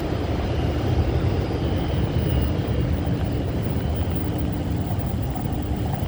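Steady low rumble of a moving road vehicle heard from inside, engine and tyre noise with no sudden events.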